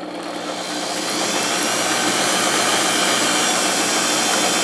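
Electric stand mixer motor running with its twin beaters mixing flour into creamed butter for sugar cookie dough. It builds up over the first second or so, then runs steadily.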